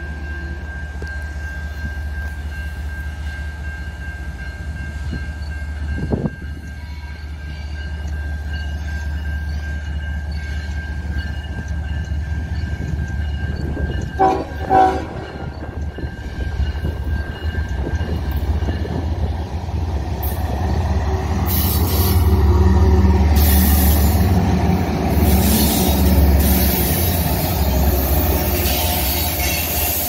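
Diesel locomotive approaching and sounding its air horn, with two short blasts about halfway through. The low engine rumble and wheel noise grow louder in the last third as it draws near.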